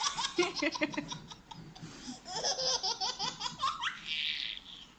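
Ten-month-old baby girl belly laughing in rapid repeated bursts, in two bouts, with a breathy gasp near the end.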